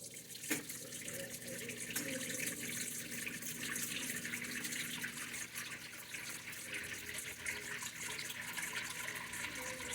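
Water rushing steadily into the drum of a Panasonic NA-F120B1 top-load washing machine as it fills for the first rinse, after a click about half a second in.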